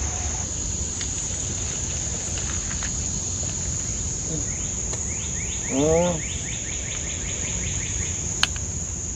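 Summer insects shrilling in a steady, unbroken high-pitched chorus, over a low outdoor rumble. A rapid series of rising chirps joins in for a few seconds midway, and a short pitched sound cuts in about six seconds in.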